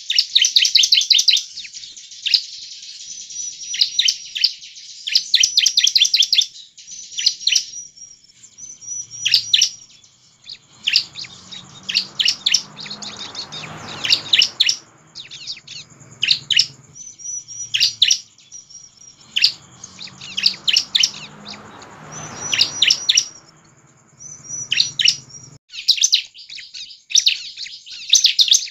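Bar-winged prinia (ciblek) singing vigorously: bursts of rapid, sharp high chirps run together into quick trills, with spaced single notes between the bursts.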